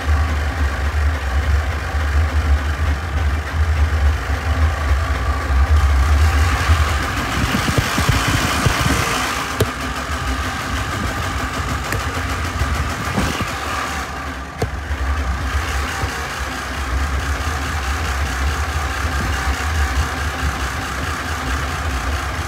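Tractor engine running steadily with a low rumble, with a stretch of hissing noise about a third of the way in while the rumble eases.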